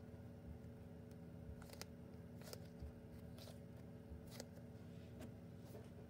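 Quiet handling of squishy fidget toys: a few faint, sharp clicks and taps, roughly one a second, over a steady low hum of room tone.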